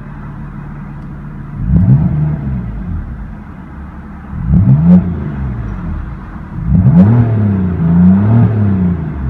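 2016 BMW M3's 3-litre twin-turbo inline-six idling through its quad-tip exhaust, blipped three times: each rev rises sharply and falls back to idle, the last a double rev.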